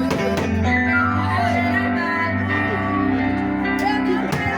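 Live band music playing: sustained keyboard or accordion-like tones over a steady bass, without vocals.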